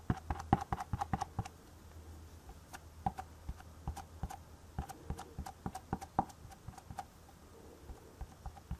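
Irregular light clicks and taps from hands handling the stamping platform and a stamp. They come thickly for the first second and a half, then more sparsely.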